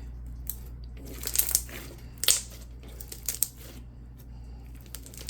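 Clear slime being squeezed and stretched by hand, giving several sharp bubble pops; the loudest pop comes about two seconds in.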